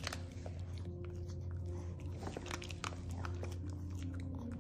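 Maltese dog chewing dry kibble from a hand: a run of short, sharp crunches, irregular and close, over a steady low hum.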